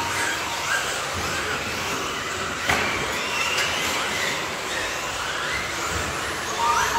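Several electric radio-controlled buggies racing, their motors whining repeatedly up in pitch as they accelerate, over a steady hiss of tyres and motors. A sharp knock a little before three seconds in, and a steady beep near the end.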